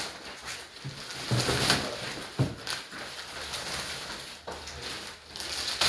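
Air hissing into a vacuum-packed mattress as it starts to decompress, with a few brief rustles and a knock.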